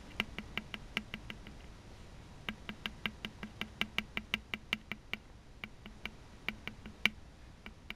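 Round-nose tip of a woodburning pen tapping on a dried gourd shell in pouncing shading strokes: quick light taps, about five a second, in runs broken by short pauses, with one sharper tap near the end.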